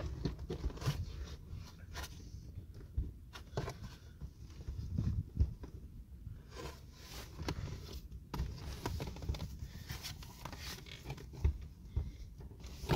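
Scattered clicks, knocks and scrapes of a car seat being shifted and worked into place over its mounting holes, with a low rumble of wind on the microphone.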